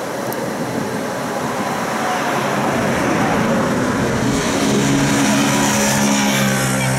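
Tram running and slowing, with a faint whine that falls in pitch. About four and a half seconds in, a louder steady hum with a high hiss sets in as it comes nearly to a stop.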